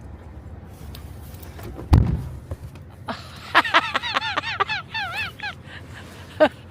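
A single thump about two seconds in, then a dog whining in a quick run of short, high yelps, several a second, and one more near the end.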